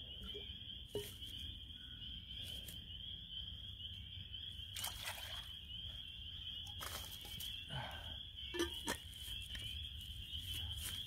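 Steady high-pitched chorus of frogs, with several short clicks and scrapes of gear being handled scattered through it.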